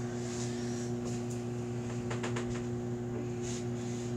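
Microwave oven running with a steady electrical hum while it heats slime, with a few faint clicks about two seconds in.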